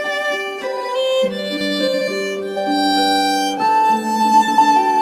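Instrumental background music: a slow melody of held notes over a sustained lower line, with no beat.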